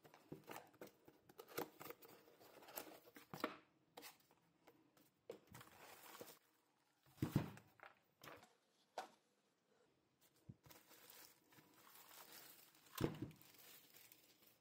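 Quiet unboxing sounds of a keyboard: a cardboard box being opened and handled, and a plastic sleeve crinkling as it is pulled off the keyboard. Scattered short rustles and knocks, with a louder low knock about seven seconds in and another near the end.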